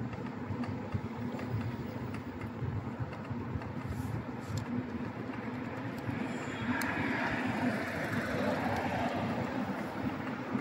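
Steady rumble of wind and road noise while riding along a city street. It grows louder and brighter about six seconds in.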